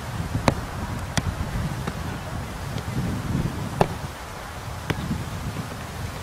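A football being kicked and struck on a grass pitch: several sharp, short knocks a second or more apart, over steady wind rumbling on the microphone.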